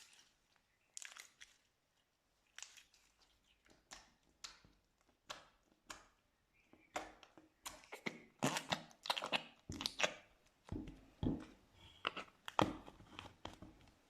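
Slime being squeezed and pressed by hand, making a string of short, irregular crackling pops. They come faster and louder after about seven seconds.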